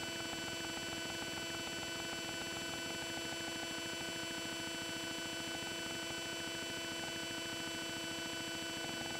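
Steady electrical hum and whine made of several unchanging tones over a faint hiss, the background noise of the recording chain with no one speaking.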